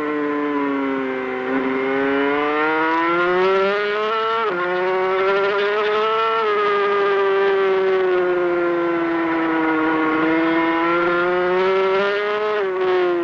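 On-board sound of a Honda NSR500 two-stroke V4 Grand Prix motorcycle at racing speed, over wind rush. The engine note falls and then climbs, drops sharply with an upshift about four and a half seconds in, eases back and holds through a long leaned-over corner, and drops twice more with quick upshifts near the end.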